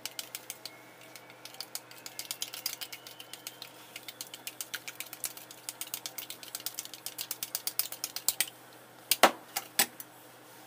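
Eggs being beaten in a bowl with wooden chopsticks: rapid, even clicking of the chopsticks against the bowl. The clicking stops about eight and a half seconds in, and two louder knocks follow as the chopsticks come to rest in the bowl.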